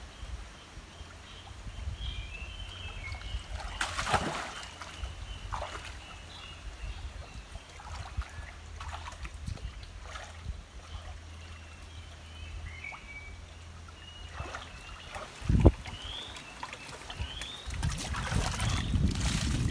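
Shallow water splashing and sloshing as people wade and grope in a stone-lined pool, with birds chirping. A single loud thump comes about three-quarters of the way in, and heavier splashing near the end as a large catfish is lifted out.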